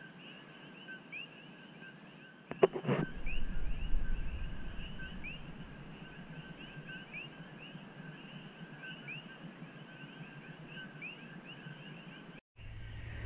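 Night chorus of coqui frogs: many short rising chirps repeating every half second or so over a steady high note. About two and a half seconds in, a knock and a short stretch of low rushing noise.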